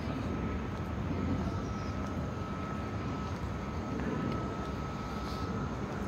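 Steady low rumble of city background noise, with a thin steady whine held above it.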